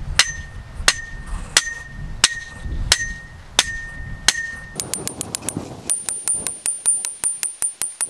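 Sledgehammer striking the top of a steel post to drive it into the ground: a ringing metallic clank with each blow, about one every 0.7 s. About halfway through, a quicker run of lighter, higher-pitched metal taps follows.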